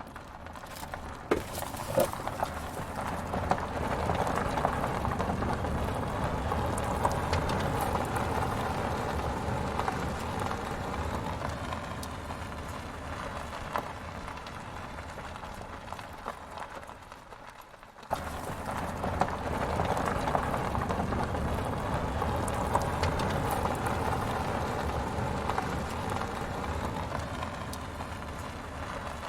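Toy road roller and mini truck rolling, their wheels giving a steady rumble with scattered clicks and rattles. The sound swells and fades, cuts off sharply about 18 seconds in, and starts again.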